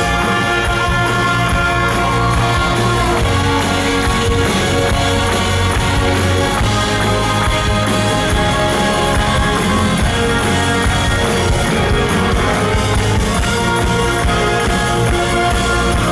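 Live rock band and string orchestra playing an instrumental passage together: electric guitar, drums and violins in a dense, loud, unbroken mix.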